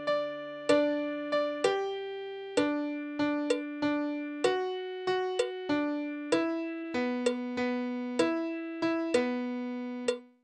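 Solo piano playing a slow, gentle melody at half speed: single notes struck a little more than once a second, each ringing and fading, over held lower notes. The sound cuts off abruptly at the very end.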